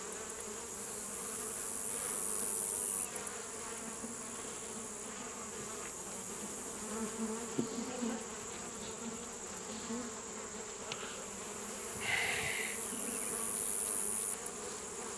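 Swarm of stirred-up honeybees buzzing steadily around an opened hive, a dense, even drone. A high hiss comes in twice, for a couple of seconds each time.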